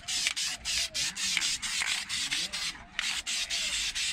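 Aerosol spray can of gold paint hissing in rapid short spurts, about six a second, as it dusts a coat onto a brake caliper; there is a brief pause about three seconds in.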